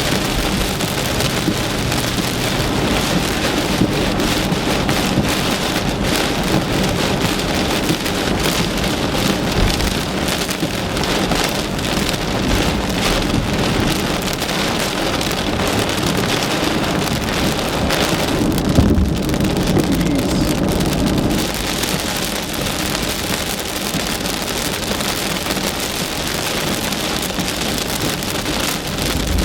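Heavy monsoon rain pelting a car, a dense steady patter of drops. About two-thirds of the way through, a low rumble swells briefly.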